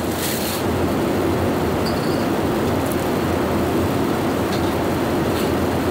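Steady cabin noise of an airliner in flight, an even rush of engine and airflow, with a few faint clicks.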